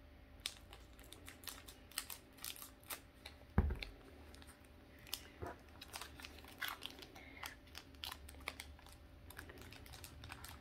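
Small scissors snipping and a foil Pokémon booster pack crinkling as it is cut and pulled open, in a run of quick light clicks and rustles. A single low thump comes about three and a half seconds in.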